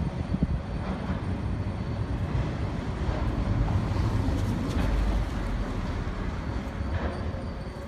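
A train running past on street rails, a steady low rumble that swells a little in the middle.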